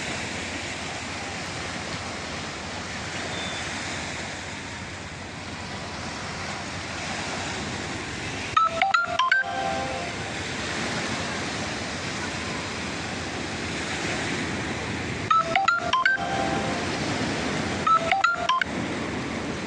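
Steady rush of shallow water running over stones, with some wind. Three times, about halfway through and twice near the end, a short electronic jingle of stepped beeping tones cuts in, like a phone ringtone or notification, louder than the water.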